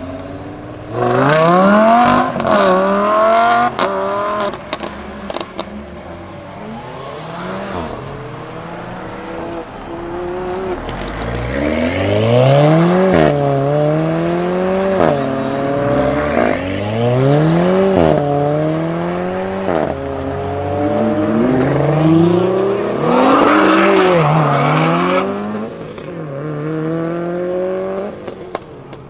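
Supercar engine accelerating hard through the gears: its pitch climbs and drops sharply at each of several quick upshifts. It is preceded by a short burst of revving with a few sharp cracks, and the sound fades away near the end.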